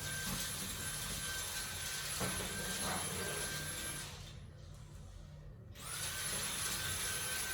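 Vacuum cleaner running with a steady high whine; about four seconds in it cuts out, and near six seconds it starts again, its whine rising as the motor spins back up.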